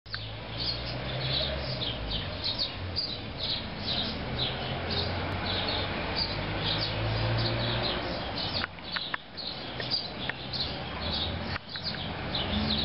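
Small birds chirping, a steady string of short high chirps about three a second, over a low rumble.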